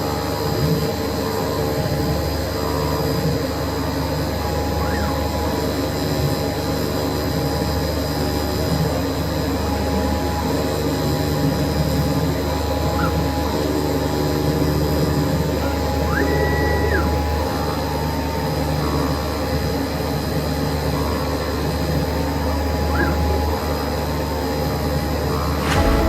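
DFC 100/60 CNC flatbed cutting machine running while it cuts shaped parts from 3 mm rubber: a steady mechanical hum with a few short whines that rise and fall as the machine moves, the clearest about two thirds of the way through.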